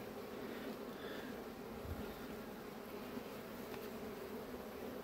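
Honeybees in an opened hive, the colony humming steadily.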